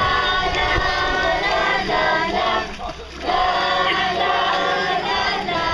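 A group of teenage girls singing a song together in unison. They sing in two phrases with a short break about three seconds in.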